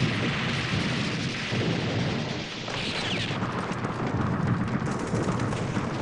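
Battle sound effects under wartime footage: continuous rumbling of explosions and gunfire, with a hissing noise at the start and again about three seconds in.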